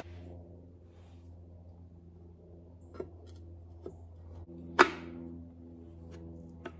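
Metal jet pump parts knocking together as the nozzle is pushed onto the pump housing by hand: a few light knocks and one sharper clunk about five seconds in, over a steady low hum.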